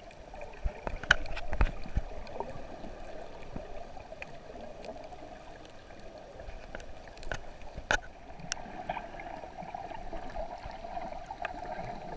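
Muffled water noise picked up by a camera held underwater while snorkeling: a steady hiss of moving water with scattered sharp clicks and knocks, a cluster of louder knocks about a second in and again around eight seconds in.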